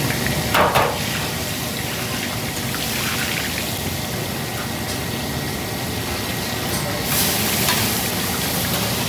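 Fish deep-frying in hot oil: a steady sizzle, growing brighter and hissier for a moment about seven seconds in.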